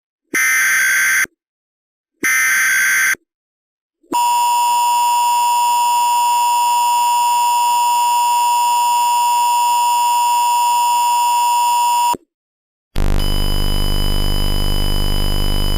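Emergency Alert System test signal. The last two of three screeching SAME header data bursts, about a second each with short gaps, are followed by the steady two-tone EAS attention signal, which holds for about eight seconds and cuts off. A harsh buzzing tone begins about a second later.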